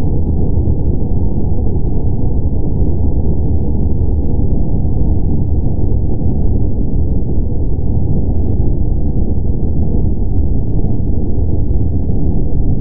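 A loud, steady, dense low rumble with no distinct tones or beats, muffled so that nothing is heard above about 1 kHz.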